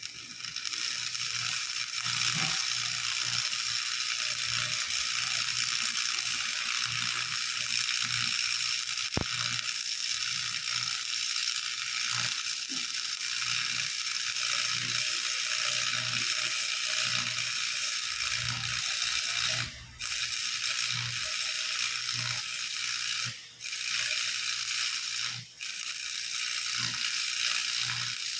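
A one-bag concrete mixer running, with a steady mechanical clatter of gears. The sound cuts out briefly three times in the second half.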